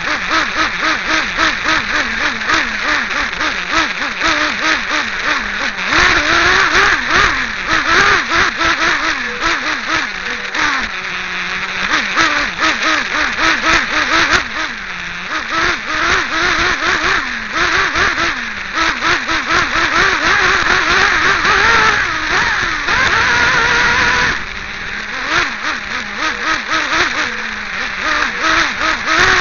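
Team Associated RC8B 1/8-scale buggy's small nitro engine heard from on board, revving up and down as the throttle is worked. It is held at high revs for a few seconds about six seconds in and again a little after twenty seconds, with drops to low revs in between.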